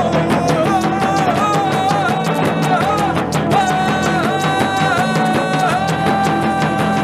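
Instrumental band music: a lead melody line with sliding, ornamented held notes over a steady bass and drum accompaniment.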